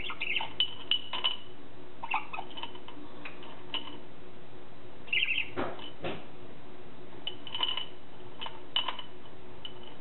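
Budgerigar giving short, scattered chirps, with two sharp taps a little past halfway, over a faint steady low hum.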